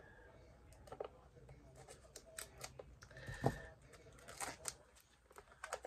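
Scattered light clicks, taps and rustles of makeup packaging being handled.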